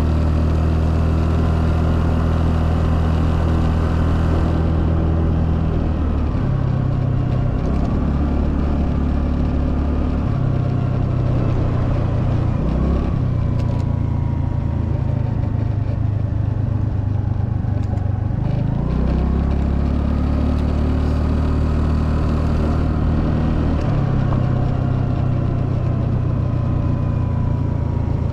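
Honda Navi's 109 cc single-cylinder four-stroke engine running while ridden, its note dropping and climbing again several times as the throttle is eased off and reopened. Wind rushes over the microphone, strongest near the start and the end.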